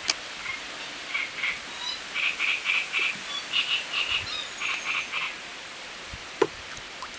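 Frogs croaking: several short runs of quick pulsed calls through the middle, with a sharp click near the start and another near the end.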